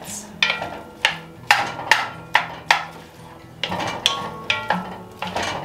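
Wooden spoon stirring in an enamelled cast-iron Dutch oven, knocking against the pot about a dozen times at an uneven pace, while chicken, onion and pepper sauté in butter and oil.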